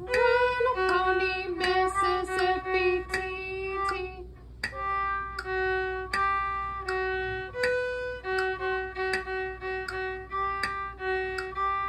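Violin played in short, separate notes moving between a few pitches, over a metronome clicking steadily; the playing keeps slipping off the metronome's beat.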